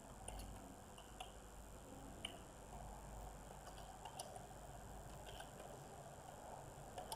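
Faint computer keyboard typing: a few scattered, irregular soft clicks over quiet room hiss.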